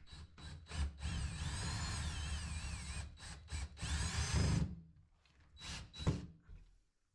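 Power drill running in two bursts with a wavering whine, driving the screws of a doorknob being installed, with a few clicks and knocks from handling the hardware around them.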